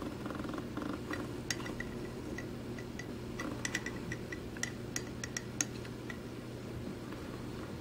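Small aquarium gravel pebbles clicking and clinking against each other in a quick, irregular run as an African helmeted turtle digs and walks through them, over a steady low hum. The clicks begin about a second in and die away a couple of seconds before the end.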